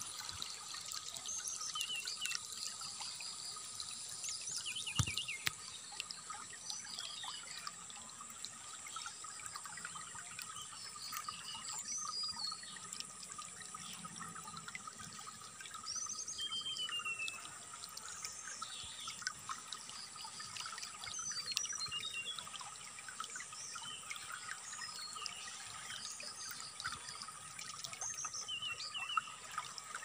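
Flowing water trickling, with the short whistles, trills and gliding notes of a brown-chested jungle flycatcher scattered throughout and a steady high ringing underneath.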